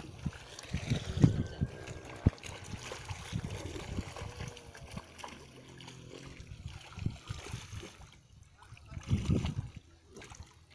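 Water sloshing and splashing as people wade through a shallow muddy fishpond hauling a seine net, with irregular low thumps and two sharp knocks in the first few seconds.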